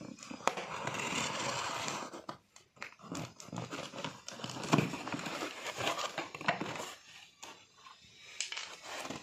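Box cutter slicing through packing tape on a cardboard box, with a long scrape in the first couple of seconds and then scattered clicks, rustling and crinkling as the cardboard flaps are pulled open near the end.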